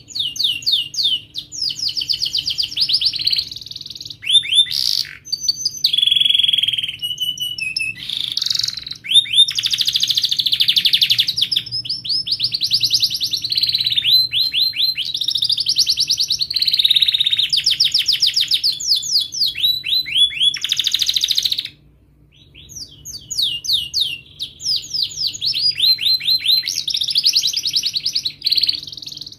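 Domestic canary singing: a long run of rolling trills, each made of rapidly repeated high notes, one phrase after another with a brief pause about three-quarters of the way through.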